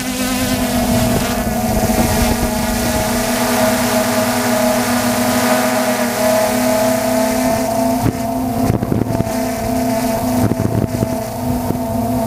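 DJI F450 quadcopter's four brushless motors and propellers, heard from on board, give a steady whine that shifts slightly in pitch. Wind buffets the microphone in gusts about eight to eleven seconds in.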